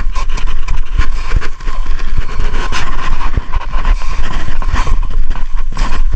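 Footsteps crunching through old, granular snow in an uneven run of steps, over a steady heavy low rumble on the microphone.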